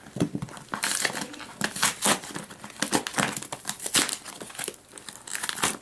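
Shipping packaging crinkling, crackling and tearing as it is cut and pulled open by hand, in irregular sharp rustles and snaps.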